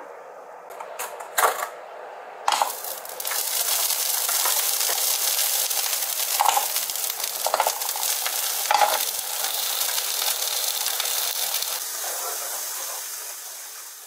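Food sizzling as it fries in a pan, starting suddenly about two and a half seconds in with a knock, with a few clinks of utensils against the pan; the sizzle fades out near the end.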